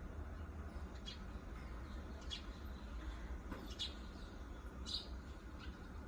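Four short, high bird chirps about a second apart over a steady low rumble.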